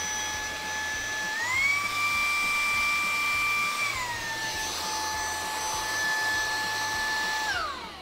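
The Wyze Handheld Vacuum's brushless DC motor running with a steady high whine. About a second and a half in, the pitch steps up as it switches to the stronger burst mode. It drops back to the normal setting about 4 s in, then spins down and stops just before the end.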